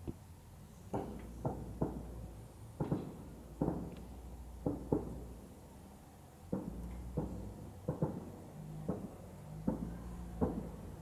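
Distant fireworks shells bursting over a lake about 5 km away: more than a dozen dull bangs at an irregular pace, each trailing a short echo.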